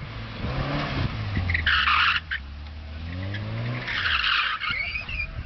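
Porsche 944 S2's 3.0-litre four-cylinder engine revving up twice as the car slides on wet tarmac, with two bursts of tyre squeal, about two seconds in and again about four seconds in.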